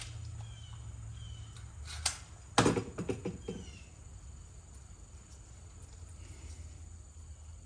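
Two sharp snips of wire cutters trimming wire ends, about two seconds in and half a second apart. Under them run a low steady hum and a few faint, short descending chirps.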